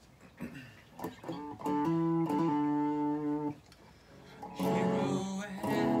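Electric guitar played in chords: a sliding note about half a second in, then chords ringing for a couple of seconds, a brief break, and more strummed chords from about two-thirds of the way through.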